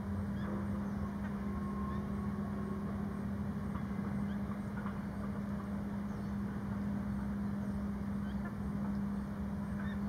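A steady low hum over a rumbling background noise.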